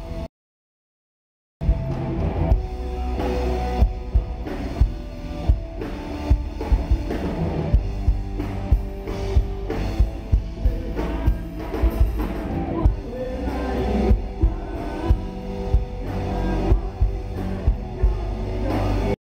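Live rock band playing through stage amplification: drum kit with a steady beat, electric guitars and bass guitar. The sound cuts out completely for about a second near the start and again briefly near the end.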